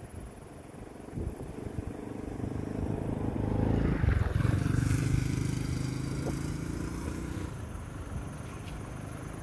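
A motor vehicle's engine approaching, passing close by about four seconds in with a drop in pitch, then fading away.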